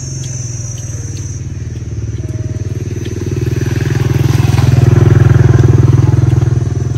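A small engine running with an even pulse, growing louder to a peak about five seconds in and easing off near the end, like a vehicle passing close by.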